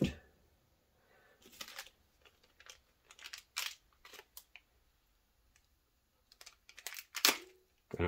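Small clear plastic bag crinkling and rustling in short, scattered spells as it is handled and opened, with the sharpest crinkle near the end.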